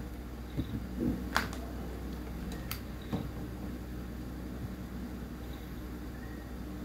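Steady low background hum, with a few short light clicks about one and a half, two and a half and three seconds in.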